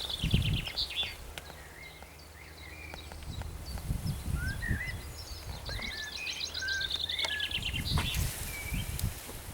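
Small songbirds singing: trills of fast repeated high notes near the start and again from about five and a half to eight seconds in, with scattered chirps between. Low bumps and rumble sit underneath.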